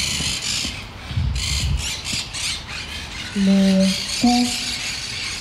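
A woman's voice making bird-like sounds: hissing over the first few seconds, then two short held squawk-like notes, the second pitched a little higher.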